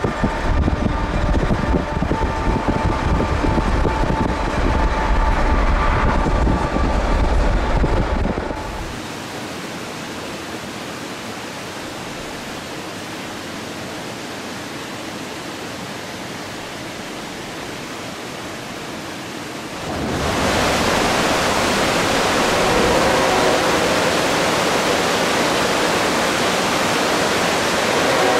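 A freight train's locomotive running alongside, heard from a vehicle pacing it, with heavy wind rumble and a few steady engine tones. About eight seconds in it cuts to a soft, even outdoor hiss by calm water, and about twenty seconds in a louder, steady rushing hiss takes over.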